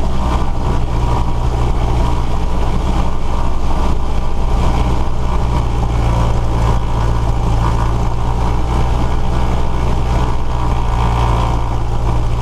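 Cessna 172S's four-cylinder Lycoming engine, heard from inside the cabin, running steadily at raised run-up RPM with no change in pitch. It is being held up for about a minute to clear a magneto that checked rough.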